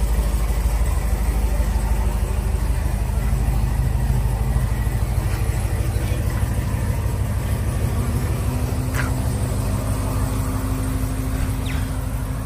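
Chevrolet Camaro ZL1's supercharged V8 idling steadily.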